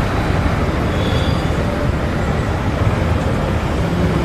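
Steady road and traffic rumble of a motorcycle ride, with no clear rise or fall in engine pitch.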